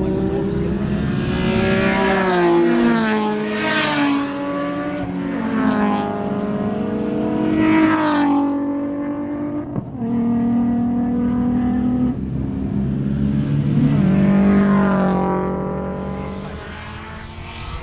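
Race cars passing one after another at speed, their engines climbing and dropping in pitch through gear changes as each goes by, with loud passes about two, four, eight and fourteen seconds in.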